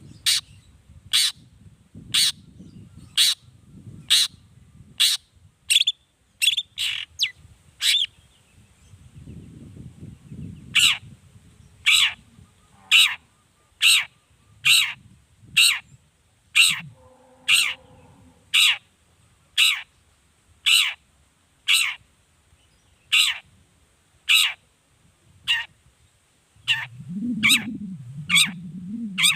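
Long-tailed shrike (cendet) giving a long series of short, harsh calls, each sweeping downward, about one a second.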